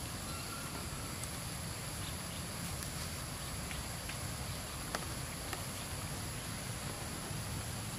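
Steady, high-pitched insect chorus of crickets or cicadas over an even low rumble, with a couple of short clicks about five seconds in.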